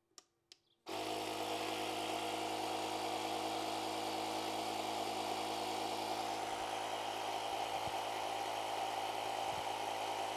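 Two brief clicks, then about a second in the Ryobi 18V Air Inflator/Deflator's compressor starts and runs at a steady pitch, pumping air into a car tyre. It is inflating automatically toward a preset 35 PSI, at which it shuts itself off.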